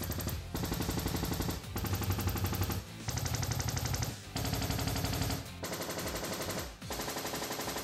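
Sony ZA1100ES receiver's auto-calibration test signal: rapid trains of clicking measurement pulses (time-stretched pulses) come out of the speakers in blocks of about a second, with brief gaps between them. The level shifts from one block to the next.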